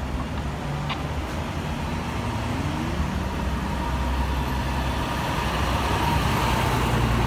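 FDNY fire engine's diesel engine running as the pumper pulls out and drives up to and past the listener, getting steadily louder as it nears. The pitch rises briefly as it revs about two seconds in.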